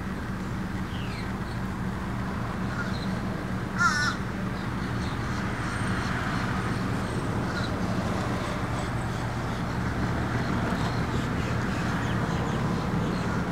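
A short, wavering bird call about four seconds in, with a few faint chirps, over a steady low hum and hiss.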